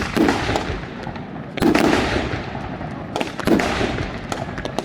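Aerial fireworks display: three heavy shell bursts about a second and a half apart, each followed by a crackling tail, with sharper single cracks in between.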